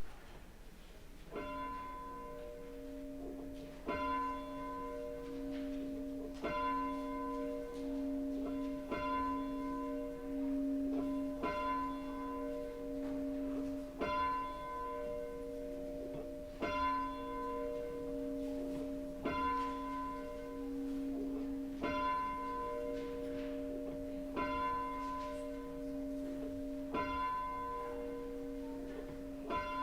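A single church bell tolling slowly, struck about every two and a half seconds at the same pitch, each stroke ringing on into the next.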